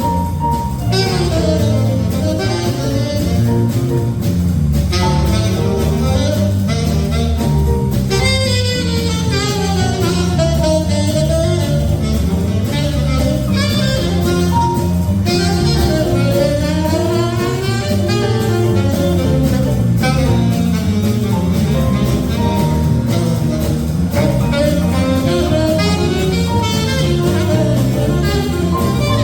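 Big band playing an instrumental chorus of a swing tune, with saxophones over bass and drums.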